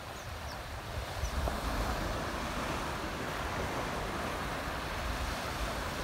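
Steady wash of gentle surf on a sandy beach, with wind rumbling on the microphone.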